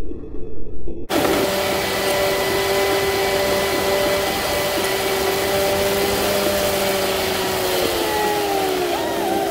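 Steady rushing noise of tyres, wind and rain inside a car driving on a wet highway, with a steady hum that slides lower in pitch near the end. It cuts in abruptly about a second in, after a brief muffled rumble.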